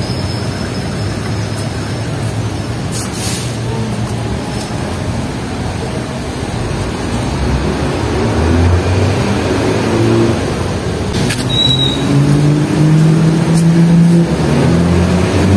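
Road traffic, with a heavy vehicle's engine running, getting louder and rising in pitch over the last few seconds.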